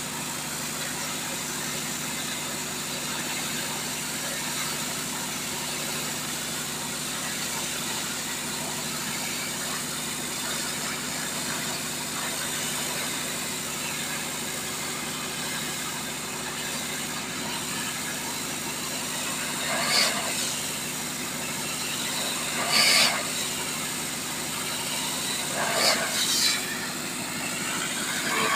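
High-pressure water jet blasting paint off a steel railway coach with a steady hiss, over the steady drone of the jet pump unit running. Three brief louder surges of hiss come in the last third.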